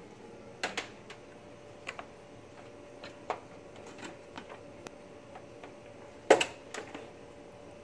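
A few scattered short clicks and taps, the loudest about six seconds in, over a faint steady hum.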